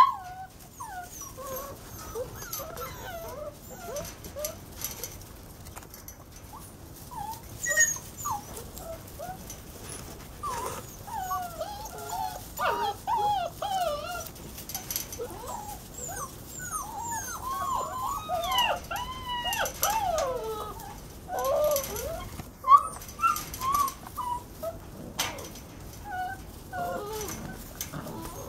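A litter of Walker hound puppies whining and yipping as they play and wrestle, many short high whines overlapping one another, busiest in the middle.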